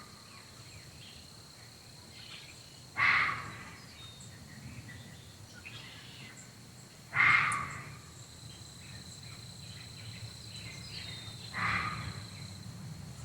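A short, echoing animal call from the woods, repeated three times about four seconds apart. Under it runs a steady high insect drone.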